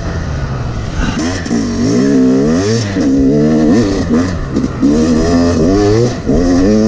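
Yamaha YZ250X two-stroke dirt bike engine under hard riding. The revs climb and fall over and over as the throttle is opened and shut, with a brief dip about six seconds in.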